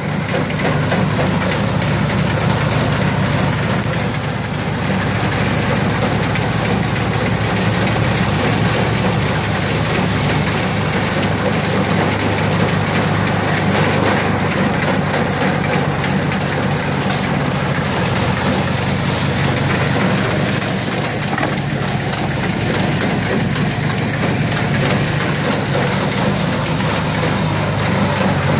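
A homemade firewood processor running, its small gasoline engine droning steadily as it drives the hydraulic chainsaw, log splitter and conveyor through logs.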